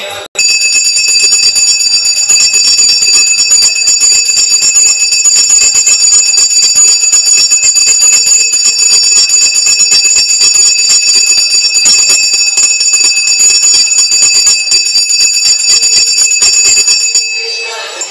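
A puja bell rung rapidly and without a break, a loud, steady, high ringing that starts abruptly and cuts off near the end.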